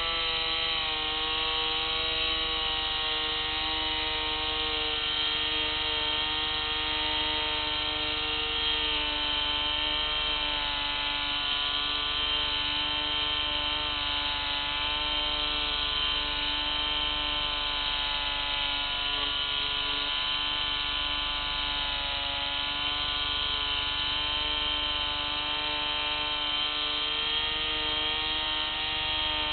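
The motor and propeller of an FPV model aircraft whine steadily in flight, as picked up by its onboard camera. The pitch slides down a little in the first second and then holds, wavering slightly.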